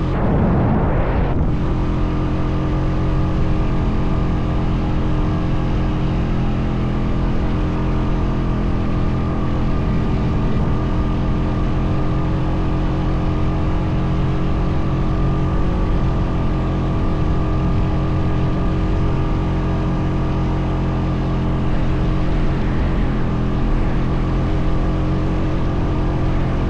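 Honda Foreman 520 ATV engine running steadily at an even pace. There is a brief rush of noise in the first second or so.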